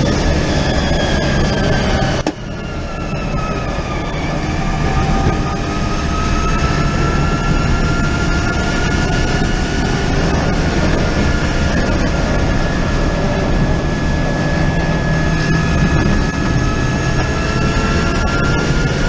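Onboard sound of the Forze hydrogen-electric race car at speed: the electric drivetrain whines over wind and road noise. The sound drops abruptly about two seconds in as the car lifts off and slows, with the whine falling in pitch, then the whine climbs slowly again as the car accelerates under power.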